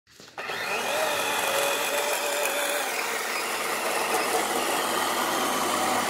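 DeWalt cordless electric chainsaw running steadily and cutting wood in a chainsaw-mill setup. It starts about half a second in.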